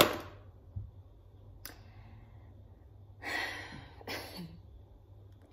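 A woman's breath sounds between sentences: a sharp, loud exhale at the start that fades quickly, a longer breathy sigh about three seconds in, and a short closed-mouth hum, over a low steady room hum.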